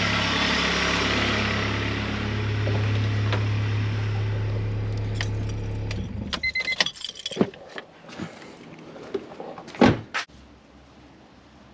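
Honda G23 VTEC four-cylinder engine idling steadily, then switched off with the ignition key about six seconds in. Keys jingle and click after it stops, and two sharp knocks follow near the end.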